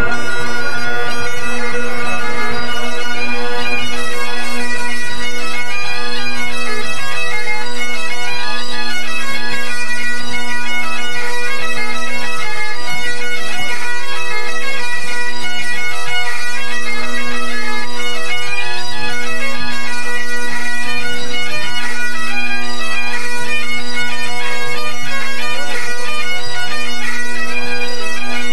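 Great Highland bagpipes of a pipe band tuning up: several sets of pipes sounding together, a steady drone held throughout under shifting chanter notes.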